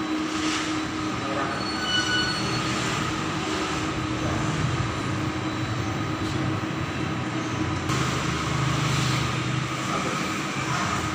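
Printing machine running steadily during its setup and calibration, a continuous mechanical whir with a low hum underneath; the low part of the noise shifts about eight seconds in.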